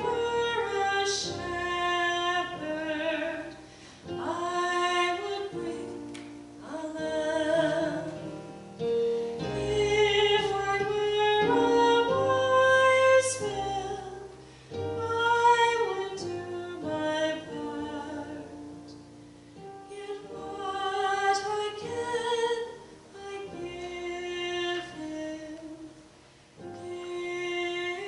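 A woman singing a slow hymn in phrases a few seconds long, over low sustained instrumental accompaniment.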